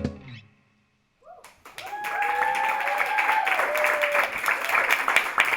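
The band's final chord dies away, a second of silence, then a small audience applauds, with a long rising and falling cheer over the clapping about two seconds in.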